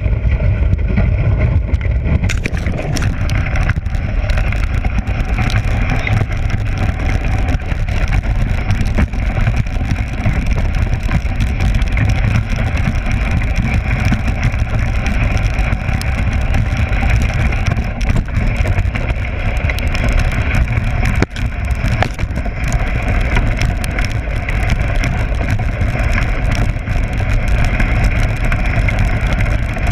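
Dog sled gliding fast over a packed snow trail: a steady rushing noise from the runners and the ride, with heavy wind rumble on the microphone and a few brief knocks from bumps in the trail.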